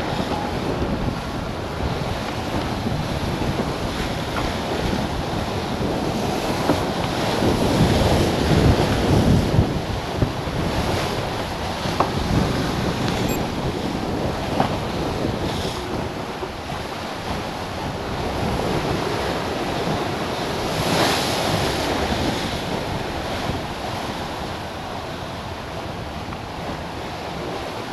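Wind buffeting the microphone and rough sea rushing and breaking along a sailing yacht's hull as she drives through heavy swell. The noise swells louder about eight to ten seconds in, with a short sharp hiss of water about twenty-one seconds in.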